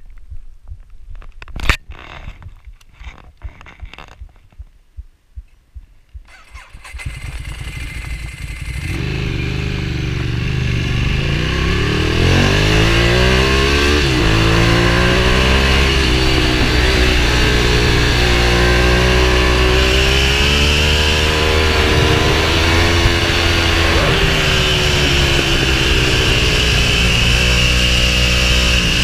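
A few handling knocks and clicks, then a Ducati Streetfighter 1098's 1099 cc L-twin comes in about six seconds in. It pulls uphill with revs rising and falling through the gears, over a steady rush of wind.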